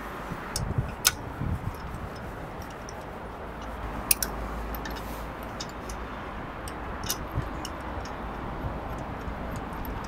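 Ratchet wrench clicking as wheel bolts are run in, with a few sharper metallic clicks about a second, four seconds and seven seconds in, over a steady low hum.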